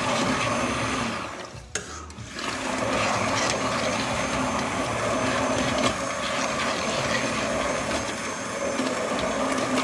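Hand-held immersion blender running in a stainless steel pot, puréeing pumpkin soup. It drops off briefly between one and two seconds in, then runs steadily again.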